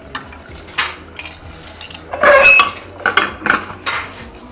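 Steel cookware and utensils clattering: a handful of sharp metal knocks and scrapes, the loudest about halfway through with a brief metallic ring.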